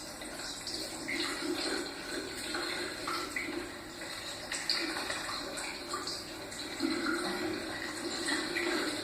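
Water running from a tap and splashing, an uneven, spattering rush.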